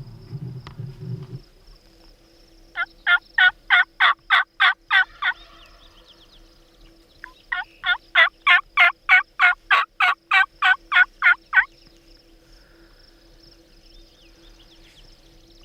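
Turkey yelping: two runs of evenly spaced, loud yelps at about four a second, a short run of about ten, then after a pause of about two seconds a longer run of about fifteen.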